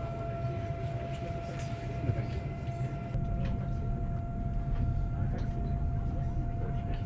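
Cabin noise of a Eurostar e320 high-speed train running: a steady low rumble with a steady, thin whine above it and a few faint clicks.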